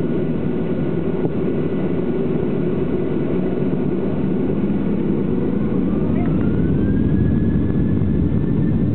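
Boeing 737-700's CFM56 turbofan engines running with a steady low rumble; about five seconds in a whine rises in pitch and then holds as the engines spool up.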